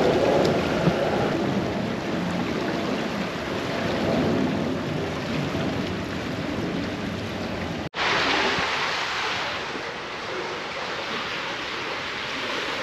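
Flowing water of a small urban brook, a steady rush and splash. The sound breaks off for an instant about eight seconds in and comes back brighter and hissier.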